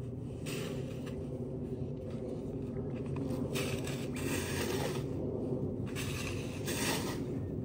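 Snow shovels scraping and pushing snow across a paved path, in several separate strokes over a steady low rumble.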